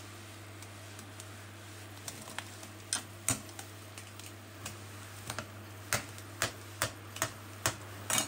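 Water boiling in a small aluminium pot on an induction cooktop. About a dozen sharp, irregular ticks and clicks come from the pot, most of them after about two seconds. A steady low hum from the hob runs underneath.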